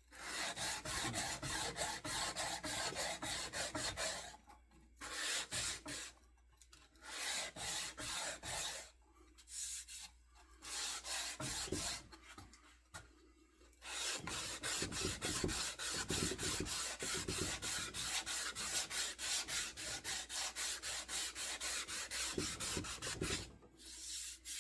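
An abrasive tool is scraped back and forth by hand along a wooden axe handle to flatten and clean up the octagon facets. The quick, even strokes come in several runs with short pauses between them, and the longest run fills the second half.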